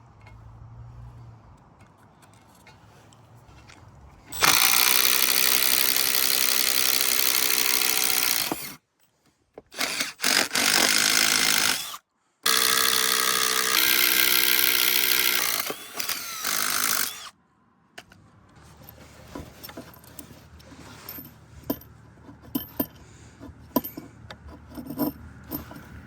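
Power drill boring into wood: a run of a few seconds starting about four seconds in, a couple of short bursts, then a second run of about five seconds. It ends with quieter knocks and handling clicks.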